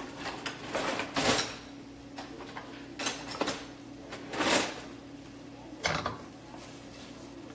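Kitchen work at a counter: about five short knocks, clatters and scrapes of utensils, containers and drawers being handled, over a steady low hum.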